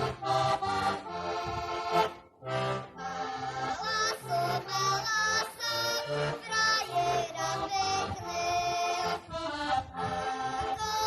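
Heligonka, a Slovak diatonic button accordion, playing a folk tune: a melody over rhythmic bass notes, with a brief break about two seconds in.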